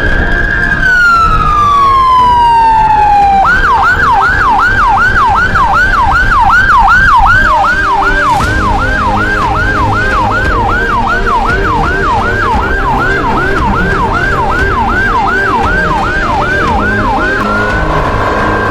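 Loud electronic emergency siren. It opens on a slow wail falling in pitch, switches about three and a half seconds in to a fast yelp of a little over two cycles a second, and near the end goes back to a slow wail rising in pitch.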